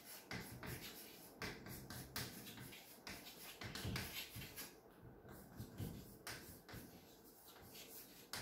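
Chalk writing on a blackboard: faint, irregular taps and short scratching strokes of the chalk against the board, one after another.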